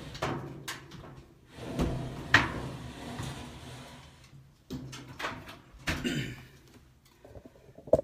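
Clothes dryer being pulled out from the wall by hand: a string of irregular knocks, clunks and scrapes as the cabinet shifts and comes free of the vent connection.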